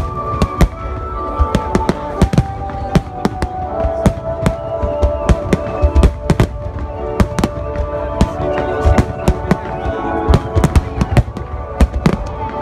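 Fireworks shells bursting in a rapid barrage, several sharp bangs a second at uneven intervals, over music with held notes.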